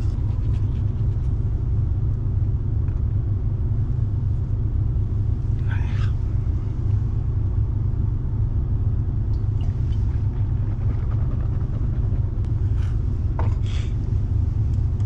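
A steady low rumble, with a couple of brief faint higher sounds about six seconds in and near the end.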